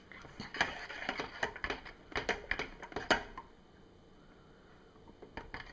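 A run of light, irregular clicks and taps from small objects being handled, quick and many for about three seconds, then a quiet stretch and a couple more clicks near the end.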